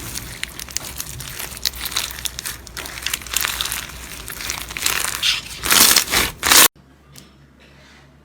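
Slime being squeezed and pressed by hand, giving a dense run of crackling, crinkling pops that grows loudest and then cuts off abruptly about two-thirds of the way through. After the cut it is much quieter, with one faint click.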